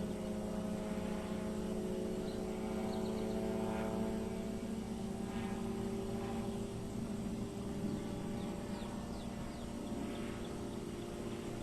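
Titan Tornado light aircraft's engine and propeller droning as it flies aerobatics, heard from the ground, its pitch sagging slightly about halfway through. A few faint short chirps sound above it.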